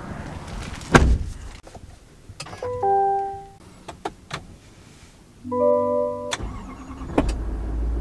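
Electronic warning chimes of a 2024 Chevy Silverado HD cabin sound in two short groups of tones, with a few clicks. Then the truck's Duramax diesel starts, about six seconds in, and settles into a steady low idle.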